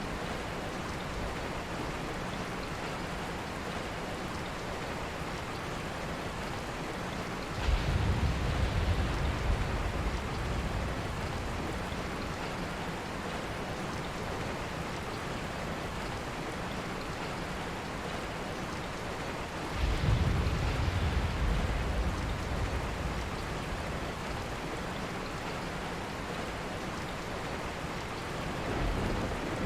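Steady rain, with two low rolls of thunder that start suddenly about 8 and 20 seconds in and fade over a few seconds, and a fainter rumble near the end.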